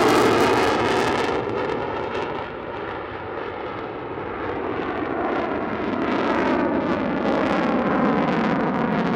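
F-16 Block 40 Fighting Falcon's General Electric F110 turbofan engine heard in flight, its jet noise with a sweeping, hollow phasing as the jet moves past. The noise is loudest at the start, dips a couple of seconds in, and swells back up.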